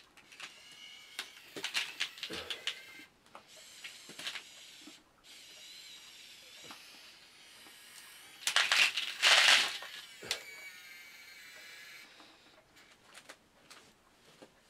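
Small electric motors and plastic gearing of a 1/50-scale radio-controlled Komatsu PC1250-8 excavator model whining as it works, with scattered clicks and clatter. A louder, rougher spell of whirring comes a little past the middle.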